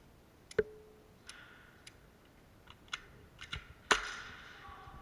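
Scattered airsoft shots and BB hits: half a dozen sharp, irregular clicks and pops, the loudest about four seconds in, with a ringing tail.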